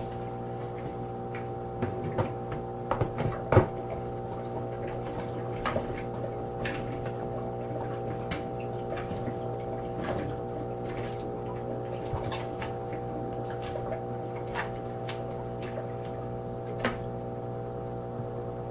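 Sunbeam humidifier running with a steady fan hum, with scattered small clicks over it, the loudest about three and a half seconds in.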